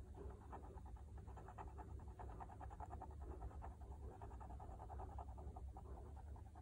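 Fineliner pen tip scratching on paper in rapid short colouring strokes, a fast, even run of faint scratches.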